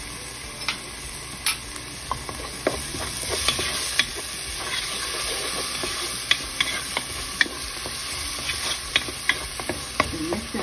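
Diced onion, garlic and chili paste frying in oil with a steady sizzle, while a wooden spoon stirs it, scraping and tapping the bottom of the pan in quick, irregular clicks.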